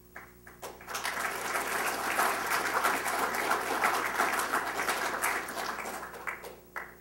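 Audience applauding. A few scattered claps swell into steady clapping about a second in, which fades out near the end with one last clap.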